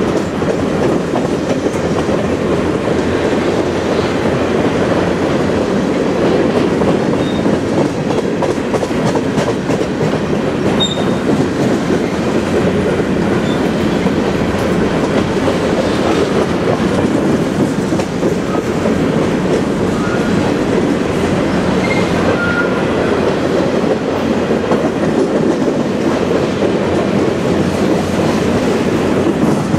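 Covered hopper cars of a long freight train rolling past at close range: a steady rumble and rattle of steel wheels on rail.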